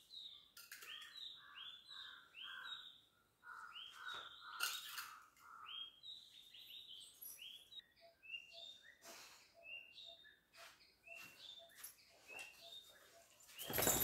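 Small birds chirping: series of short, quick chirps, several a second at first, then more scattered. A few faint clicks, and a brief louder scuffling noise near the end.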